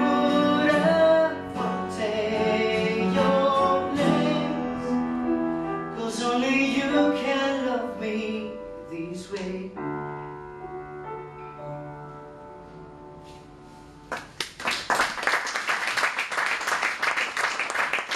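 Singing over acoustic guitar and piano, the song closing on held chords that die away; about 14 seconds in, an audience breaks into applause.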